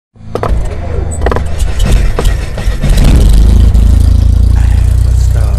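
Logo-intro sound effect: a deep, steady rumble with several sharp hits in the first couple of seconds, swelling to its loudest about three seconds in.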